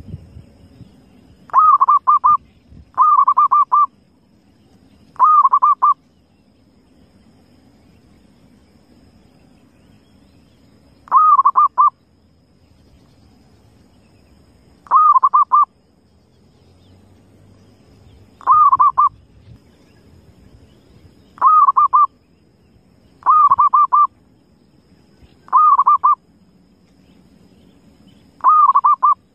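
Wild zebra dove (perkutut) cooing: ten short coos made of quick pulsed notes, each under a second long, repeated at uneven gaps of about one to six seconds.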